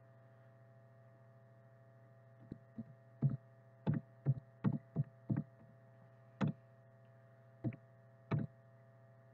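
Computer keyboard keystrokes: about a dozen irregularly spaced taps starting about two and a half seconds in, over a steady low electrical hum.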